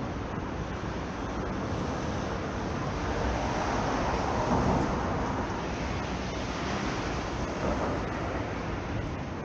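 City street traffic noise, a steady rumble that swells as a vehicle passes close about four to five seconds in.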